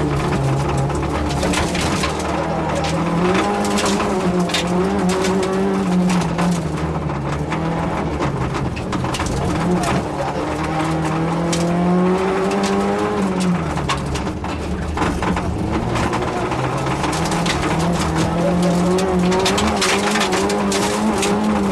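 Yugo rally car's engine heard from inside the cabin, its note climbing and then dropping several times as it is driven hard through the gears, with stones and gravel clattering against the car.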